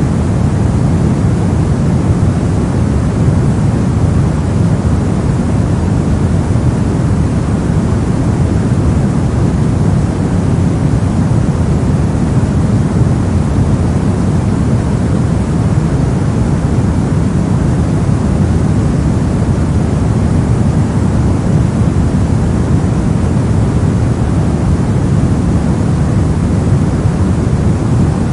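Soft noise for sleep: a steady, unchanging rushing hiss, fuller and deeper in the low end than in the treble, with no breaks or swells.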